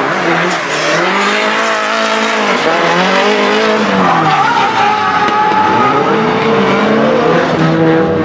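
Drift car's engine revving hard, its pitch climbing and dropping again and again as the throttle is worked through the slide, with the tyres squealing as the car skids sideways.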